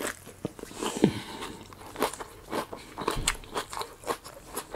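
A person chewing a mouthful of crunchy romaine lettuce taco, with irregular crunching and clicks.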